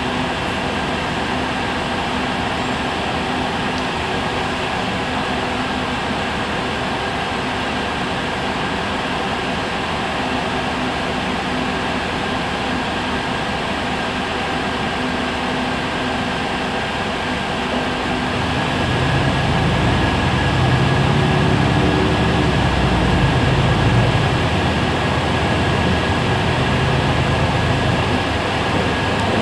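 Heuliez GX 137 city bus standing at a stop, running at idle: a steady hum with a faint high whine. About two-thirds of the way in, a deeper low rumble swells and stays louder for several seconds before easing off.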